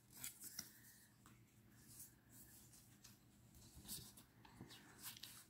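Near silence, with a few faint rustles and soft taps of tarot cards being handled and slid through the hands.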